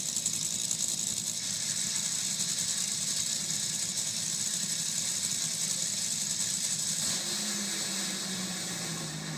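Top Fuel dragsters' supercharged, nitromethane-burning V8 engines running together as a loud, dense, crackling rattle. About seven seconds in, the sound eases and its pitch slides downward.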